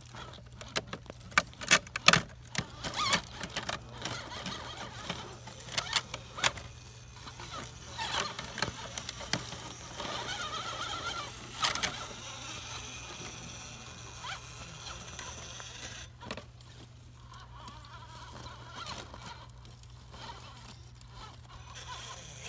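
Electric RC rock crawler working over granite boulders: sharp clicks and knocks of its tyres and body on the rock in the first few seconds, then a thin electric whine from its drive motor and servo around ten seconds in.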